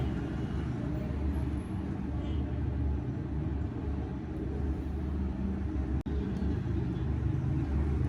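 A steady low rumble, with one brief dropout about six seconds in.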